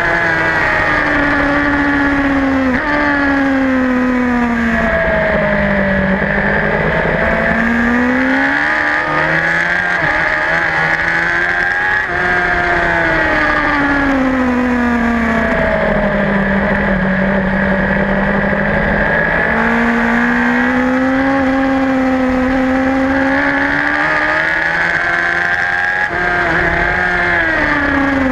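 Racing superbike's engine heard from the bike itself at racing speed. Its pitch climbs under hard acceleration and sinks as the rider brakes and shifts down, several times over, with wind rushing over the camera microphone.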